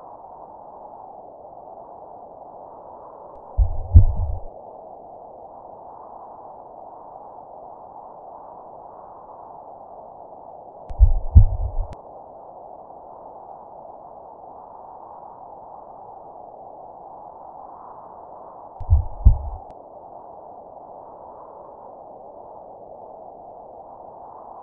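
Soundtrack sound design: a steady mid-pitched drone with a deep double boom three times, about every seven and a half seconds.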